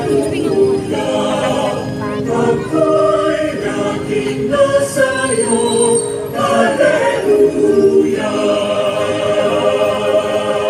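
A choir singing a slow Alleluia hymn in long held notes, phrase after phrase with short breaths between.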